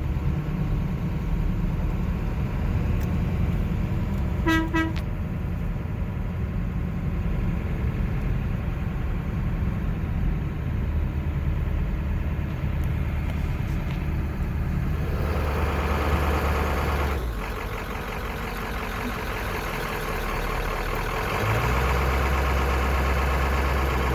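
Vehicle engine and road rumble heard from inside the cabin while creeping along slowly. About four and a half seconds in comes a short toot of roughly half a second. From about fifteen seconds in, a broader rushing noise joins the rumble.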